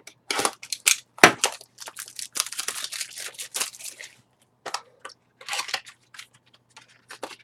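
Trading-card packaging being handled and torn open: a string of sharp crackles and crinkles, densest about two to four seconds in, with a single loud snap a little over a second in.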